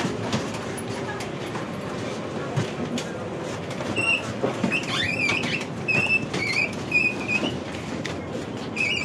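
Wheeled suitcase rolling along a train carriage aisle, with footsteps and small knocks over a steady low hum. From about four seconds in there is a run of short, high squeaks, roughly one a second.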